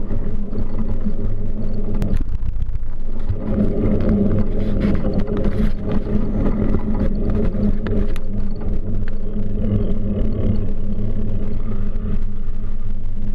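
Steady low rumble of wind and road vibration on a bicycle-mounted camera while riding, with car traffic passing alongside.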